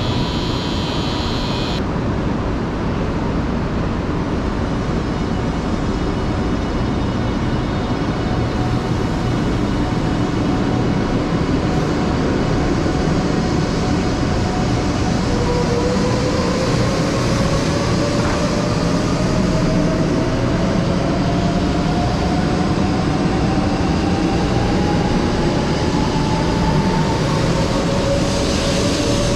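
JR West 500 series Shinkansen train running, a steady rumble and rush of running noise. From about halfway through, a whine rises slowly in pitch: its traction motors as the train picks up speed.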